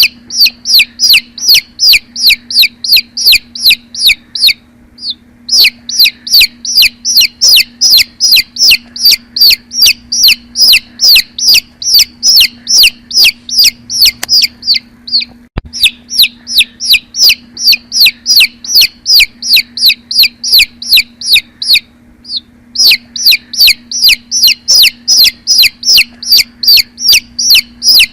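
A chick peeping insistently: loud, high calls repeated about three times a second, each sliding down in pitch, broken by two short pauses of about a second. A faint steady hum runs underneath.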